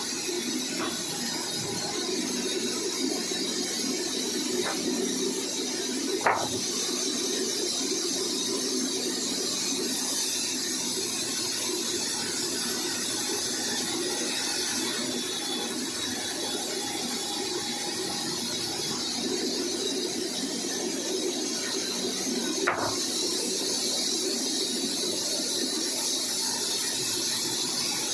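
Sawmill saw running steadily through kikar (acacia) wood, with two sharp knocks about sixteen seconds apart.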